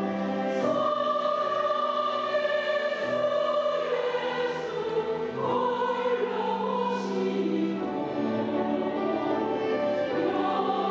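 Women's choir singing a sacred choral piece in long held notes, the pitch moving every second or two.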